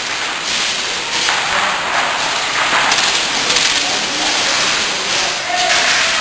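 Airsoft rifles firing in rapid repeated bursts, a dense crackling clatter coming in runs of about half a second to a second.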